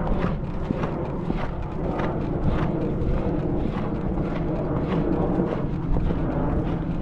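Horse's hoofbeats, a regular thud a little under twice a second, over a steady low rumble.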